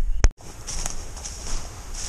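A sharp click about a quarter second in, then a person walking through dry brush: irregular footsteps with crunching and rustling.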